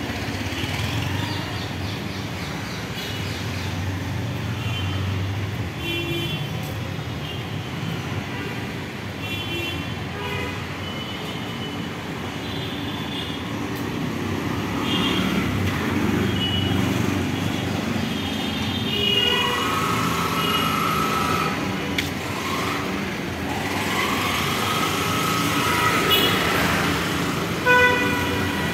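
Street traffic running steadily, with many short vehicle horn toots throughout and a few longer horn blasts in the second half.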